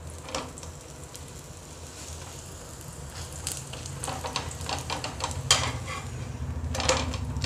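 Stuffed paratha frying in ghee on a flat non-stick tawa, sizzling over a low steady hum. A metal spatula scrapes and taps the pan several times as the paratha is pressed and turned over.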